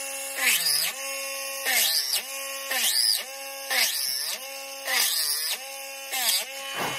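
Small handheld rotary tool running with a steady whine, its pitch dipping about six times, roughly once a second, as the countersink bit is pressed into the screw holes of a wooden fingerboard deck and the motor bogs under the load. Each bite brings a short, high scraping grind of the bit cutting wood.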